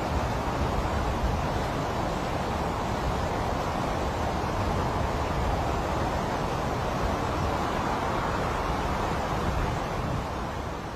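Steady rush of fast-flowing water, a river in monsoon spate, with a low rumble beneath. It begins to fade out near the end.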